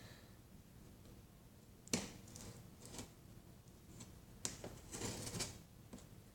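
Faint handling of a cardboard box as a peel-off strip on its side is worked open: a sharp tap about two seconds in, a lighter one a second later, then scraping and rustling of cardboard.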